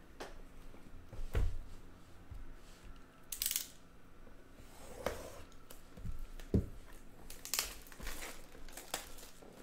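Sealed trading-card boxes and packs being torn open and handled: tearing and crinkling of wrapping, with a few light knocks of cardboard set down.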